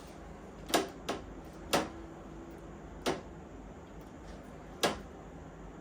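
Five sharp, irregularly spaced clicks and knocks of a 3D-printed plastic fan bracket being handled and pushed into place in a server case, its tab not quite long enough to hold.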